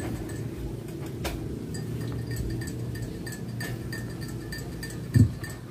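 Handling noise from a 12-inch subwoofer being assembled by hand, as the cone with its new voice coil is pressed down over centring shims: faint rubbing and light ticks, then one short low thud about five seconds in.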